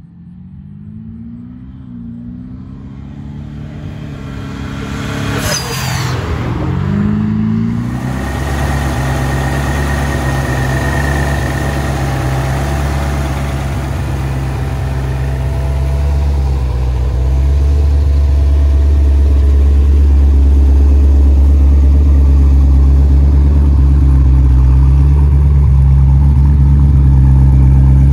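Twin-turbo intercooled small-block Ford V8 of a 1964 Ford Fairlane 500 approaching, its engine note swelling and sliding in pitch, with a brief rush of noise about six seconds in as it pulls up. It then idles steadily through Borla mufflers, a deep even idle that grows louder in the second half.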